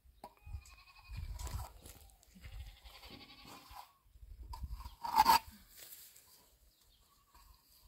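Goats bleating several times in wavering calls, the loudest about five seconds in.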